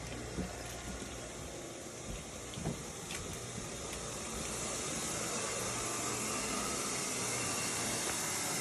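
Carpet-cleaning machine running steadily: a motor hum under a rushing hiss that grows louder about halfway through, with a few light knocks in the first few seconds.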